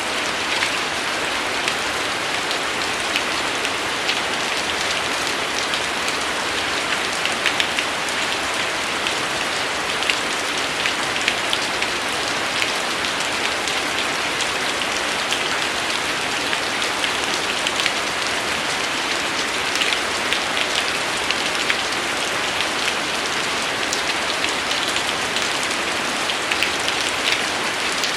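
Steady rain falling: a dense, even hiss with many separate drop ticks standing out.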